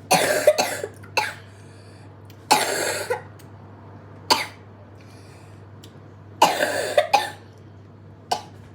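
A child coughing in a run of short bouts, a few coughs at a time, with pauses of a second or two between them.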